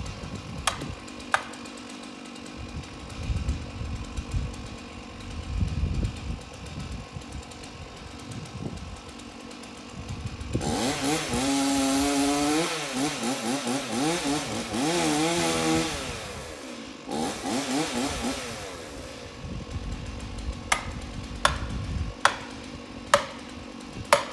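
Chainsaw cutting into a standing tree trunk, its two-stroke engine revving and bogging under load for about five seconds, then a shorter cut a second later. Before it, wind gusts rumble on the microphone; near the end come a few sharp clicks.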